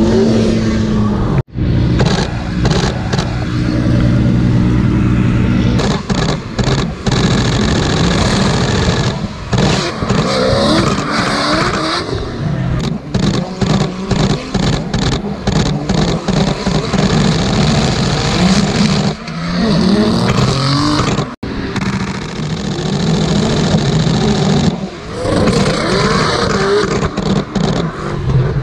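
Drift cars on track, their high-revving race engines climbing and falling in pitch as they are blipped through a drift, with tyre noise beneath. The sound cuts out abruptly twice.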